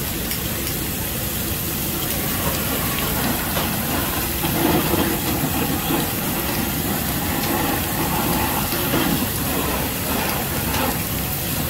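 Steady sizzling hiss of food cooking on a teppanyaki griddle.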